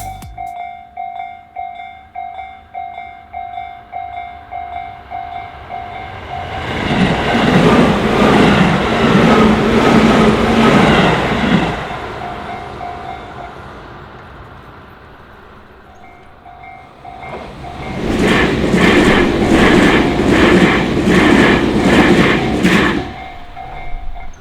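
Japanese level-crossing warning bell ringing in steady, rapid pulses while a Tobu Noda Line electric train passes, starting about six seconds in, its wheels clattering rhythmically over the rail joints. The bell stops, starts again, and a second train clatters past about eighteen seconds in.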